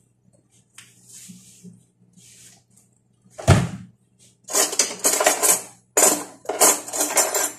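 Kitchen handling sounds at the counter: a single heavy thump about three and a half seconds in, then two stretches of clattering and rustling, each a little over a second long.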